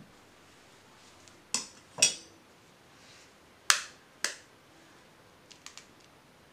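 Sharp clinks of kitchen utensils being set down, then a knife rapped twice on a hen's egg to crack it, followed by faint crackles as the shell is pulled apart.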